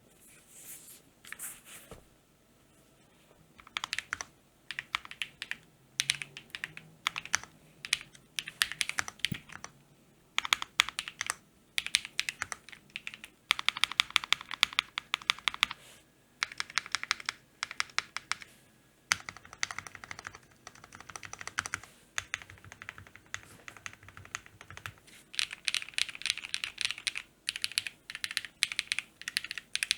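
Typing on an Akko ACR Pro Alice Plus mechanical keyboard fitted with KTT Kang White switches and GMK WOB clone keycaps: a few scattered keystrokes at first, then from about four seconds in, runs of rapid clacking keystrokes in bursts of a second or two with short pauses between.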